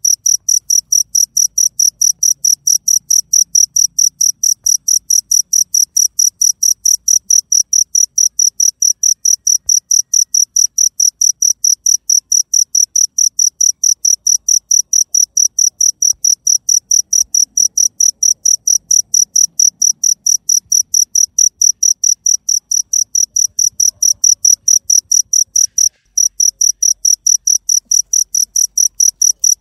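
A cricket chirping loudly and steadily, about five high-pitched chirps a second, with one short break near the end.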